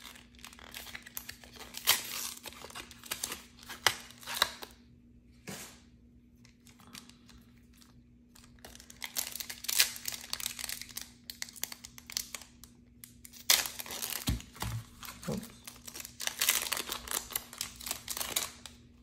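Pokémon card blister pack being pulled apart by hand: the cardboard backing and plastic blister crinkle and rip, then a foil booster pack wrapper is torn open. It comes in several bursts with short pauses between them.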